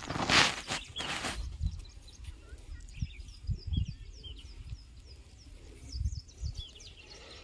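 Small birds chirping in quick, short, downward-sliding notes, with a loud rush of noise about half a second in and a few short low thumps.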